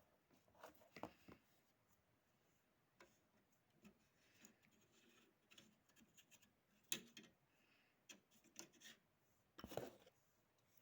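Faint, irregular clicks and short rubbing scrapes of small hard objects being handled, loudest about a second in, around seven seconds and near the end.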